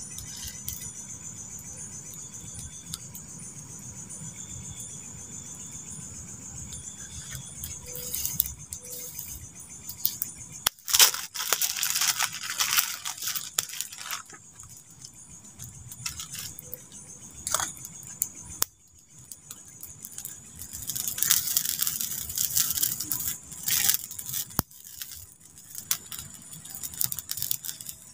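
Cooking over a wood campfire: food frying in a pan and the fire crackling, with clinks and scrapes as the food is stirred. There are two louder spells of crackling and rustling, one about a third of the way in and one about two-thirds in, over a steady faint high trill.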